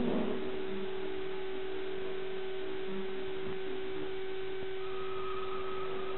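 A steady, unchanging hum at one pitch over a constant hiss, with a few faint brief higher tones; no train sounds stand out.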